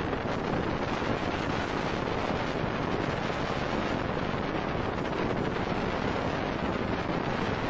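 Steady wind noise buffeting the microphone on a moving boat, over the rush of choppy water.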